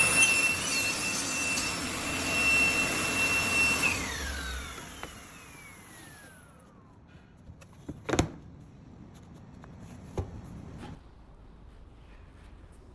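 Sliding table saw running with a steady high whine, then switched off about four seconds in, its blade spinning down with a falling whine that fades over a few seconds. Two sharp knocks follow later.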